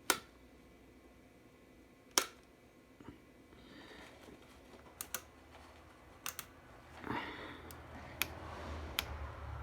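A scattering of sharp clicks and light knocks, about ten in all and some in quick pairs, from hands working on a small piece of equipment, with soft rustling and a low hum coming up in the second half.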